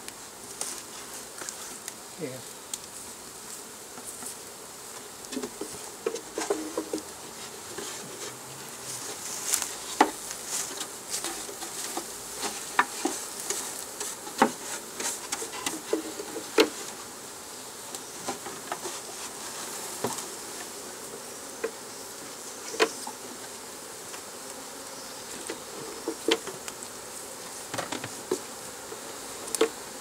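Honeybees buzzing steadily around an open hive box as a swarm is moved in. Sharp wooden clicks and knocks sound every second or two as the hive frames and boxes are lifted and set down.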